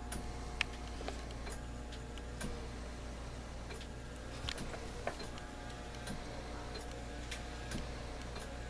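Light scattered clicks and knocks of wooden cabinet doors and their metal knobs being handled, opened and closed, over a steady low hum.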